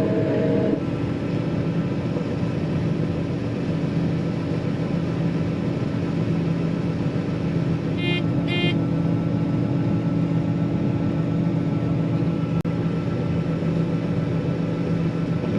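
John Deere 9500 combine running steadily while harvesting wheat, a constant engine and machinery drone. About eight seconds in come two short beeps.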